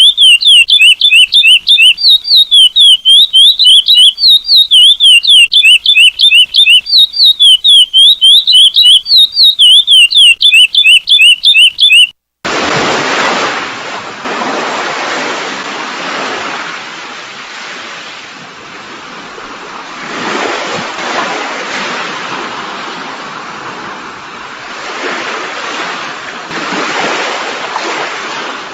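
Curió (chestnut-bellied seed-finch) song, a loud, quick run of repeated whistled notes, stops about twelve seconds in. After a short break comes the steady, surging wash of ocean waves.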